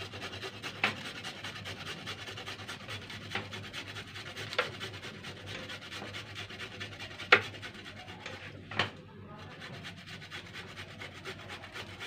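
Raw turmeric root being grated on a flat handheld metal grater: a continuous rapid rasping scrape, with a few sharper clicks along the way, the loudest about seven seconds in.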